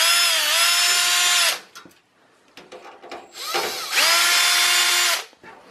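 Cordless drill/driver backing screws out of a computer case's sheet-metal frame: two runs of its motor whine, each about a second and a half long, the second starting a little after three seconds in and rising in pitch as it spins up. Faint clicks of the bit and screws come between the runs.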